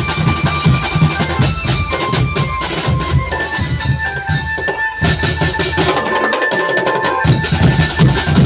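Marching drum band playing: drums beating a steady rhythm under a high melody line of held notes. The low drums drop out for about a second near the end, then come back in.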